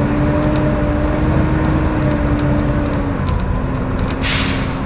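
Volvo B7TL double-decker bus running, heard from on board, with the vacuum-cleaner-like 'hoovering' whine that drops away about three seconds in and comes back weaker. Just over four seconds in comes a short, loud hiss of compressed air.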